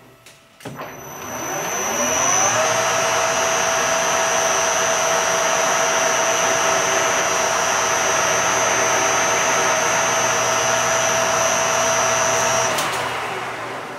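Metal lathe starting up: the spindle and gear whine climbs in pitch for about two seconds, then runs steadily with a high whine while a tailstock countersink chamfers the bore of a sleeve. The lathe is switched off near the end and winds down.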